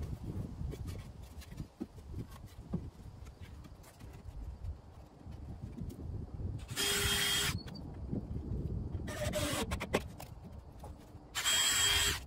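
Cordless drill running in short bursts, about a second each, with a steady whine: one midway, a fainter one shortly after, and one near the end, as 2-inch drywall screws go into an OSB shelf top. Light knocks and handling noise between the bursts.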